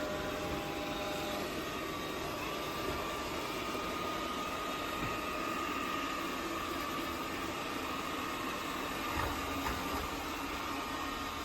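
Tapo RV30 Max Plus robot vacuum running: a steady suction-fan noise with a thin, high whine held over it.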